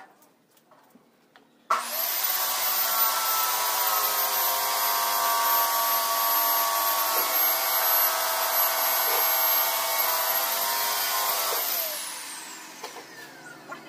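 An electric motor switches on abruptly at full speed about two seconds in and runs steadily with a high whine for about ten seconds. It is then switched off and winds down, its pitch falling as it fades.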